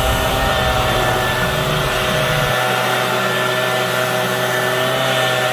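Leaf blower running steadily with a constant whine; its low rumble drops away about halfway through.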